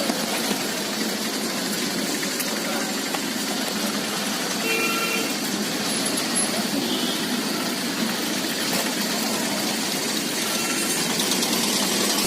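Steady vehicle engine and traffic noise, with faint background voices.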